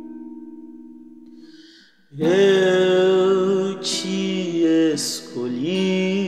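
A strummed acoustic guitar chord rings out and fades. About two seconds in, a man's singing voice comes in over the guitar, holding long notes.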